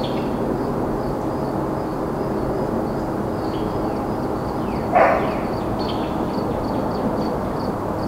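A dog barks once, about five seconds in, over the steady hum of distant highway traffic and continuous chirping of crickets.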